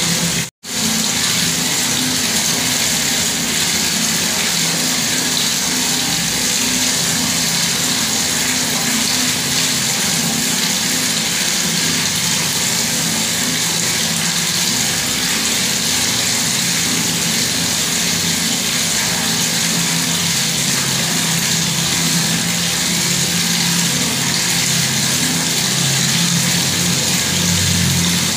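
Bathroom water tap running, a steady rush of falling water with a low hum under it; the sound cuts out for an instant about half a second in.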